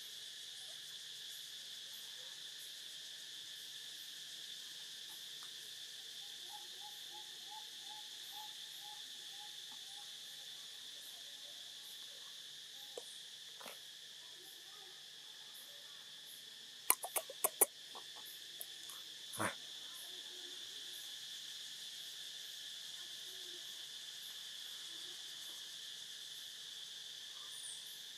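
Steady insect chorus, a high shrill drone that holds throughout. A little past halfway comes a quick run of about five sharp clicks, then a single short knock.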